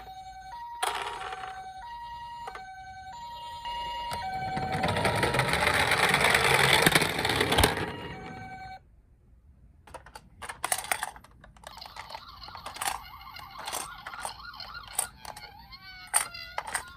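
Toy ambulance's electronic two-tone hi-lo siren, high and low tones alternating about every half second. It gives way to a loud rushing noise that swells for about four seconds and then cuts off suddenly. Scattered clicks and knocks follow, and near the end a wailing siren tone sliding up and down starts.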